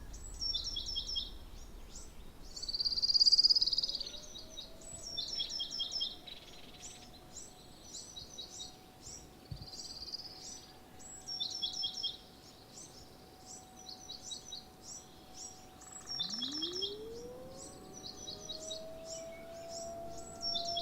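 Songbirds singing repeated short descending phrases, with one louder call about three seconds in. A faint steady tone runs underneath from about five seconds in. Near the end an ACA P50 outdoor warning siren starts up, its pitch rising steeply and then levelling off.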